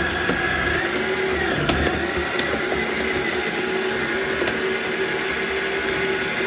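Yonanas 902 soft-serve maker's motor running steadily with a constant hum as frozen fruit is pressed down its chute with the plunger and churned into soft serve, with a few sharp clicks.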